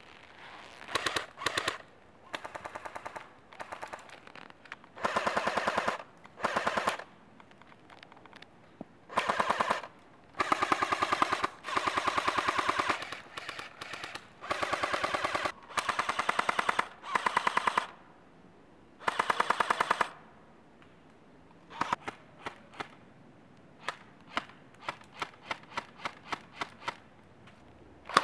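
Airsoft rifles firing in full-auto bursts of rapid shots, each burst lasting about one to two seconds. In the last third the firing turns to a run of short bursts and single shots.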